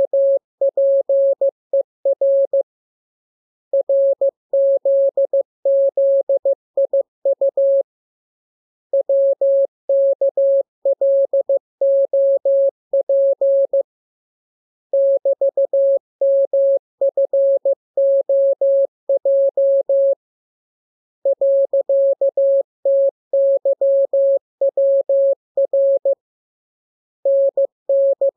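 Morse code (CW) sent as a single steady tone keyed into dots and dashes, in runs of characters about four to five seconds long separated by pauses of about a second: a receiving-practice radiogram of the lesson's letters.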